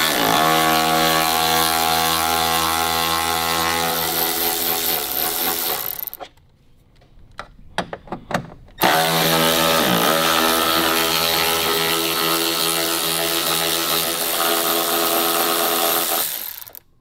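Cordless power driver spinning out the 10 mm bolts that hold the fender to the body, running in two steady stretches of about six and eight seconds, with a short pause and a few clicks between them.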